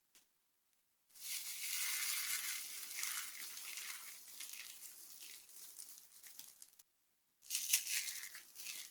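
Dry soap being crushed and crumbling, a dense crackling crunch that starts about a second in and slowly tails off, then a second, sharper crunch near the end.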